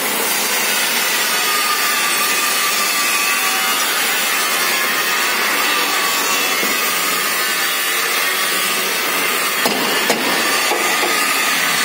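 Gas brazing torch burning with a steady hiss and a faint whistle in it. Two light knocks sound close together near the end.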